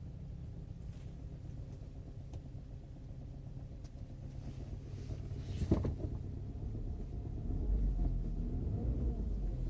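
2015 Porsche Cayenne engine running, heard from inside the cabin, with the tapping and knocking noise the owner complains of. There is one sharp knock a little past halfway, and the low rumble grows louder for the last two seconds.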